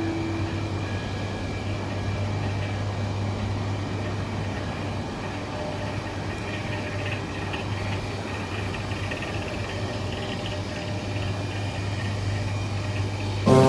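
Roastery machinery running with a steady hum and low drone, and faint light clinking through the middle.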